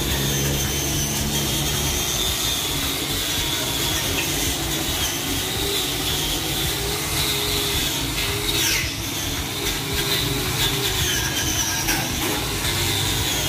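Electric angle grinder with an abrasive disc grinding rust off a cast iron diesel engine block, its motor whining steadily and wavering as the disc is pressed against the metal, with a brief dip a little past halfway.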